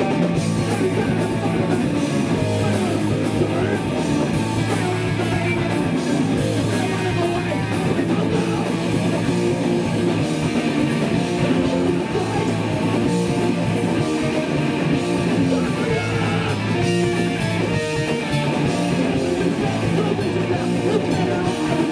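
Hardcore punk band playing live: loud distorted electric guitar with bass and drums, steady and continuous.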